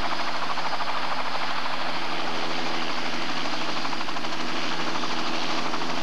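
Helicopter running close by on the ground: a loud, steady engine and rotor noise with a fast, even pulsing.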